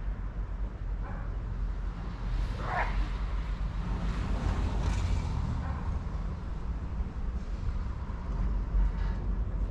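Box truck idling in the street: a steady low engine rumble, with a short rising squeak about three seconds in.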